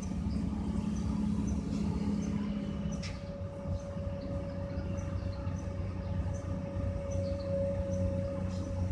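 Komatsu PC200-8MO excavator's diesel engine running under load with a steady low drone, joined about two and a half seconds in by a steady higher whine from the hydraulics as the boom lifts a concrete block off a dump truck.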